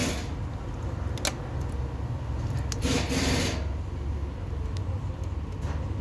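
Hand work on car parts: short scraping rubs and a few sharp clicks as hoses and fittings are handled, over a steady low rumble.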